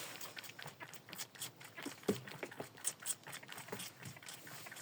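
Young goat kids moving and feeding in hay: scattered light, irregular taps and rustles.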